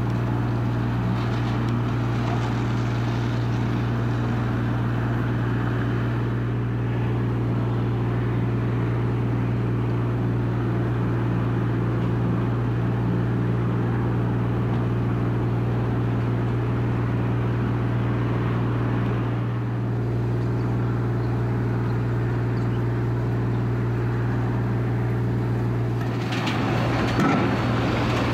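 Semi truck's diesel engine running steadily, a constant low drone with no change in pitch; a brief burst of rushing noise joins it near the end.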